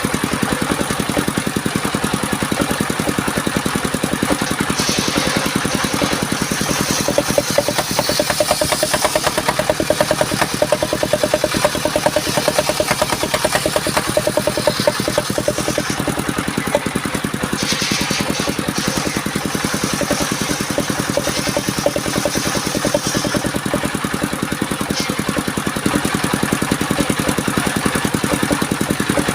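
The engine of a portable circular sawmill running steadily. A higher hiss joins it for about ten seconds starting some five seconds in, and again for about five seconds near the middle, as the blade cuts through the bayur log.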